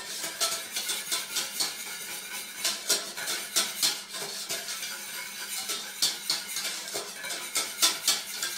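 Metal balloon whisk stirring flour into melted margarine in a stainless steel saucepan, with irregular clinks and scrapes of the wires against the pan. The stirring is kept up constantly to work the roux smooth, without lumps.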